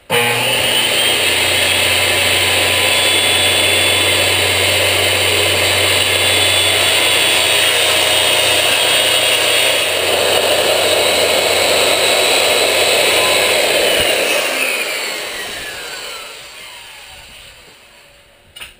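Circular saw starting abruptly and cutting along the edge of a thin plywood panel with a steady, loud whine for about fourteen seconds. It is then released and the blade spins down with a falling whine.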